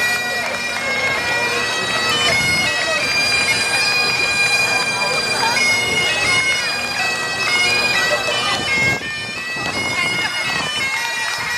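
Bagpipes playing a melody of held notes over their steady drone, with a brief dip about nine seconds in.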